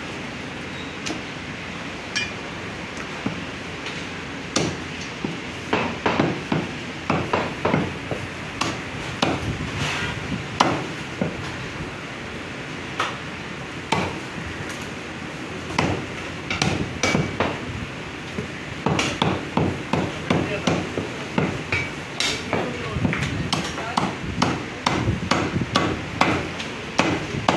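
Butcher's cleaver chopping bone-in mutton on a round wooden log block: sharp knocks in quick runs, starting a few seconds in, with a couple of short pauses.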